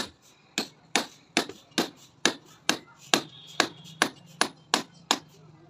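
A hammer striking hard at an even pace, about two blows a second, around a dozen times, then stopping shortly before the end.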